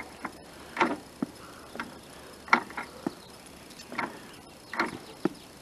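Lawnmower drive wheel's ratcheting keepers clicking as the wheel is worked by hand, about a dozen short sharp clicks at an uneven pace. The keepers' pins are sticking.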